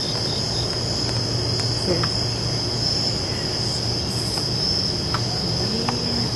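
Crickets trilling in one continuous high-pitched drone, with a second insect chirping in short, evenly spaced pulses for the first half second. A low steady hum runs underneath.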